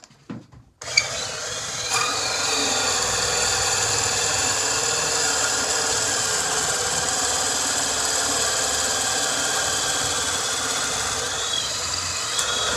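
Cordless drill running steadily under load, spinning a half-inch wooden dowel through a steel sizing die that shaves it down to 3/8 inch: a steady motor whine over the scraping of wood being cut. It starts about a second in, after some faint handling.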